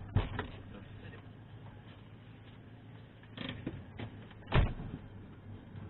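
Car idling at a standstill, a low steady hum, with a few knocks and clunks from inside the car; the loudest is a thump about four and a half seconds in.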